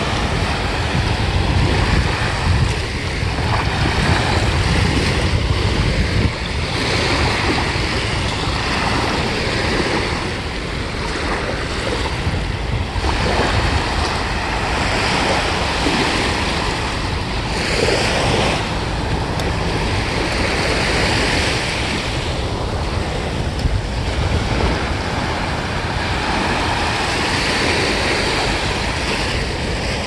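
Small waves breaking and washing up a sandy shore, the hiss swelling and fading every few seconds, with wind rumbling on the microphone.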